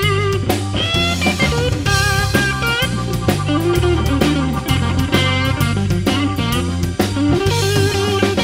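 Blues band playing an instrumental break: an electric guitar leads with bent, sliding notes over bass and drums.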